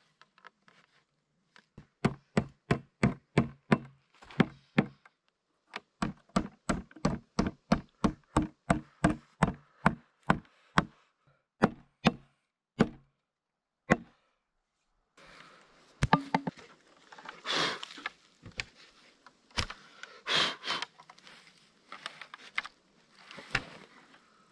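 Rapid hammering on wood, about three to four blows a second in two runs, then a few single blows. From about two-thirds through, this gives way to rustling and handling of wood with scattered knocks.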